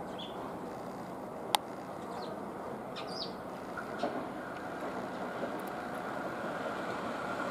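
A Tobu 500 series Revaty electric train running toward the listener on a curve: a steady running hum that grows a little louder, with one sharp click about a second and a half in and a few bird chirps.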